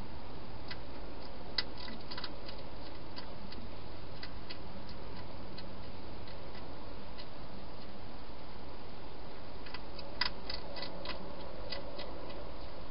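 A wild hedgehog crunching dry food in a plastic feeding box: scattered sharp clicks in two bursts, about two seconds in and again about ten seconds in, over a steady hiss.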